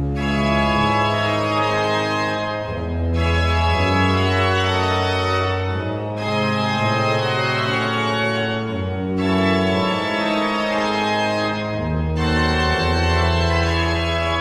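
Organ music: slow, sustained full chords that change about every three seconds.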